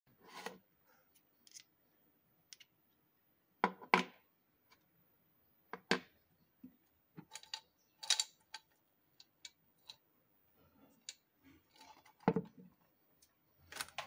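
A ceiling fan motor's metal end cover and loose ball bearings being handled on a wooden table: irregular clicks and taps, with a few louder knocks scattered among them.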